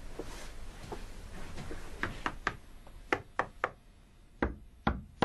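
A hand knocking on a wall, as if sounding it out, in quick sets of three sharp knocks followed by two or three more near the end. A few soft thuds come first.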